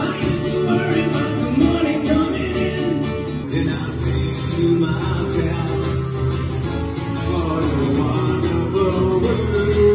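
Music led by a guitar, with a possible vocal line, running without a break.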